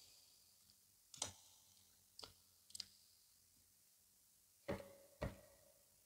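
Eating sounds from chewing a mouthful of fufu with egusi soup: sharp wet mouth clicks and smacks. There are five of them at uneven spacing, and the two loudest come close together near the end.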